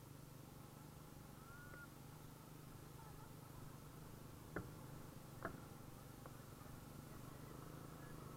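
Near silence: the motorbike's engine as a faint, steady low hum, muffled on the camera's audio, with two sharp clicks about four and a half and five and a half seconds in.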